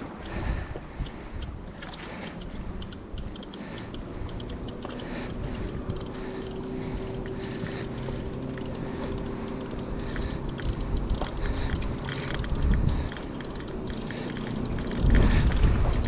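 Spinning fishing reel clicking rapidly, its gears and drag working against a big crevalle jack on the line. Two gusts of wind hit the microphone, the second near the end.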